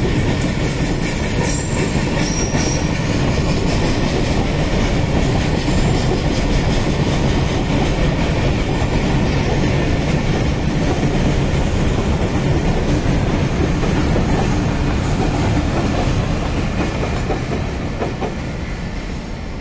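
Freight train of covered wagons rolling past: a steady rumble and clatter of wheels over the rails, easing off near the end as the last wagons and the brake van go by.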